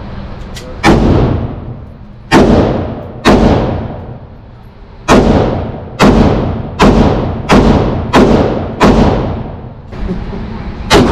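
Gunshots at an indoor shooting range: about ten sharp shots at irregular intervals, each followed by a ringing echo off the walls and booths, with a fainter shot from another lane about half a second in.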